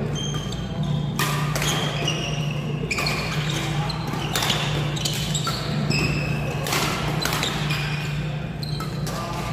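Badminton rally: rackets sharply striking the shuttlecock again and again, mixed with short squeaks of sports shoes on the court mat, over a steady low hum in a reverberant hall.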